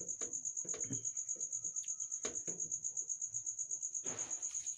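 A cricket chirping in a rapid, even pulse, steady throughout. Under it come a few soft knocks of kitchen utensils and a short hiss near the end as syrup is spooned over the apple murabba on the plate.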